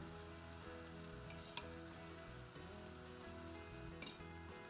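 Chicken mince balls sizzling as they fry in ghee in a steel pan, with soft background music. Two sharp clicks, about a second and a half in and near the end.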